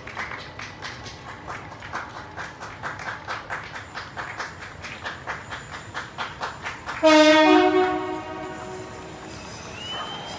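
Many people clapping, an uneven patter of claps several a second. About seven seconds in, a train sounds a brief two-tone horn, the loudest sound, which then dies away. A short rising whistle comes near the end.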